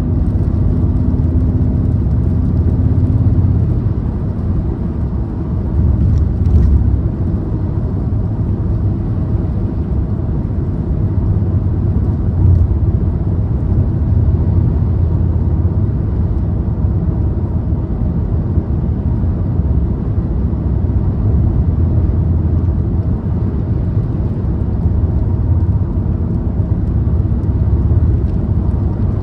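A car driving along the road: a steady low rumble of tyres and engine with an even whir.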